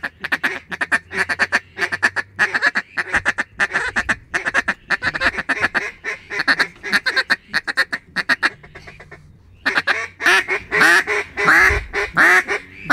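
Hunters blowing mallard duck calls to work circling ducks: a rapid string of short quacking notes, a short pause about nine seconds in, then louder, longer quacks near the end.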